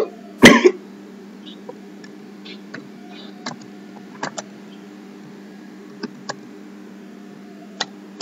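A man clears his throat twice, loudly, right at the start. After that come a few scattered clicks as the command is typed on a computer keyboard, over a steady low electrical hum.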